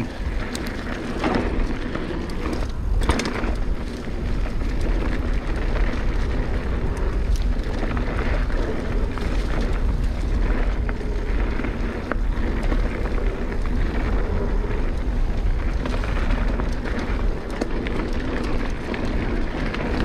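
Mountain bike riding fast down dirt singletrack: wind rumbling on the microphone over tyre noise and the rattle of the bike, with a few sharp knocks as it goes over bumps.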